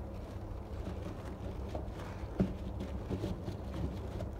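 Faint rustling and handling noises as a sneaker is packed into a tissue-lined cardboard shoebox, with one soft knock about halfway through, over a steady low hum.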